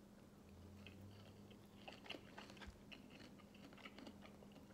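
Faint chewing of a mouthful of cooked chain pickerel: a run of small mouth clicks, busiest in the second half, over a low steady hum.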